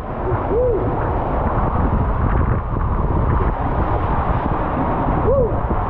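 Steady rushing water and the rumble of an inner tube sliding down a water-filled waterslide flume into an enclosed tube section. A brief rising-and-falling squeal cuts through twice, about half a second in and near the end.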